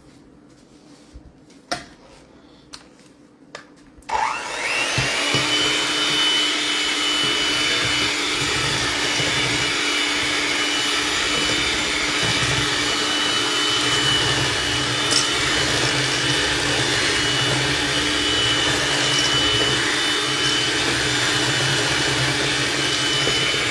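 Black+Decker electric hand mixer switched on about four seconds in and running steadily with a constant whine, its beaters whisking eggs and sugar in a stainless steel bowl. A few light clicks come before it starts.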